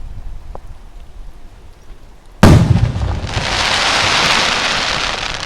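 An aerial firework shell bursting with one loud boom about two and a half seconds in, followed by a couple of seconds of dense, high crackling that fades near the end.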